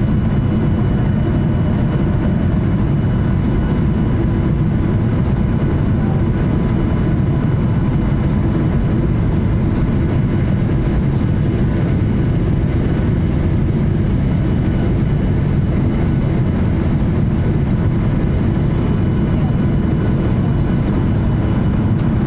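Steady engine and airflow noise inside a jet airliner's cabin in flight: a low, even rush with faint steady whining tones above it.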